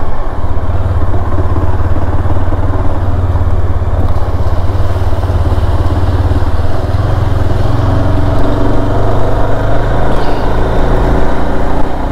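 Motorcycle engine running under way while riding. It pulls harder from about seven seconds in, its note rising and growing stronger.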